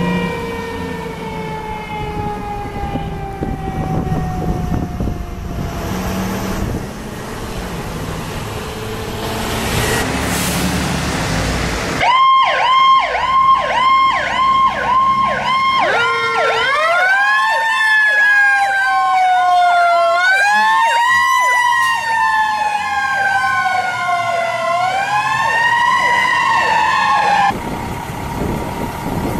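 Fire rescue truck sirens. First a siren glides slowly down in pitch over a truck's engine rumble. Then a rescue truck's fast electronic yelp is joined by a second siren that winds up and falls away three times.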